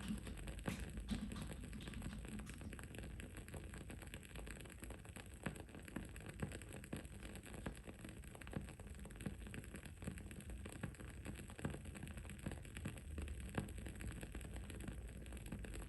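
Wood-wick candle crackling: irregular small pops and ticks over a steady low background hum.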